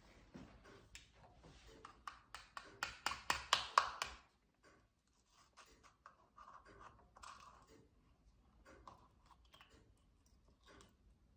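A table knife tapping around the top of a soft-boiled egg in an egg cup, cracking the shell: a quick run of sharp taps, about six a second, getting louder for about two seconds, then softer scattered taps and scrapes on the shell.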